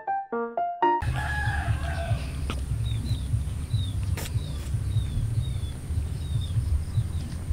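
Outdoor yard ambience with a steady low wind rumble on the microphone. About a second in comes the falling end of a rooster's crow, and a small bird then repeats a short, high, falling chirp about once every 0.7 s.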